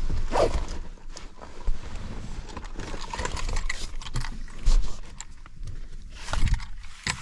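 Irregular footsteps and scuffing with knocks and rustles close to the microphone, the sound of someone walking or hurrying over rough ground while carrying gear.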